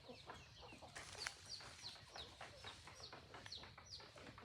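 Free-range chickens clucking faintly, with short high falling peeps several times a second from about a second in, among scattered soft clicks.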